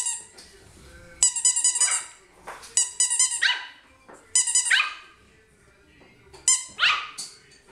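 Two-month-old Yorkshire Terrier puppy giving small, high-pitched yipping barks, about five of them a second or so apart, each dropping in pitch. Short steady squeaks come with several of the yips.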